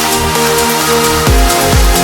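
Background electronic dance music: held synth notes, with a pounding kick-drum beat coming back in about a second in.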